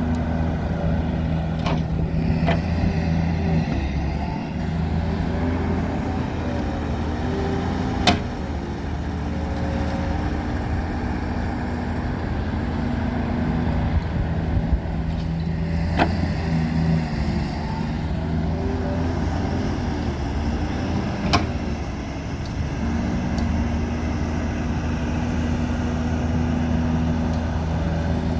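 Diesel engine of a digging machine loading mud into a truck, running steadily, its note shifting in steps as it works. Four sharp knocks are heard over it.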